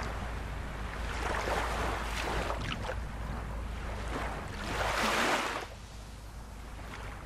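River water flowing and lapping, a steady wash of water noise, with a louder rush of water about five seconds in.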